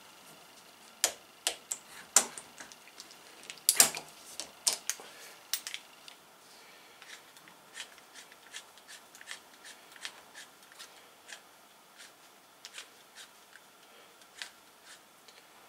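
Small clicks and ticks from a click-type torque wrench being handled and set: a few sharper clicks in the first five seconds, the loudest about four seconds in, then a long run of light, evenly spaced ticks as its adjusting handle is turned.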